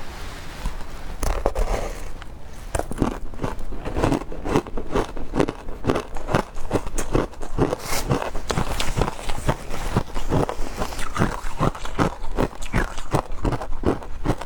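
Frozen matcha ice being bitten and chewed, a quick run of crisp crunches about three a second that starts about a second in.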